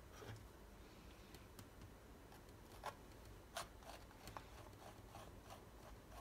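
Faint scrapes and light ticks of a metal palette knife working thick acrylic paint, with a few sharper clicks about three and three and a half seconds in, over near-silent room tone.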